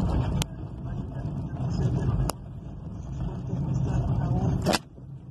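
Low rumble of a moving car heard from inside the cabin: engine and road noise with some wind. Three sharp clicks, each followed by a sudden drop in level.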